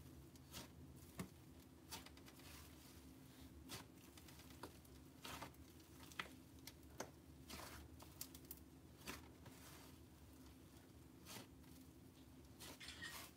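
Faint crackling and popping of slime as both hands press into it and pull it apart, the slime's 'sizzle'. Small irregular pops, several a second at times.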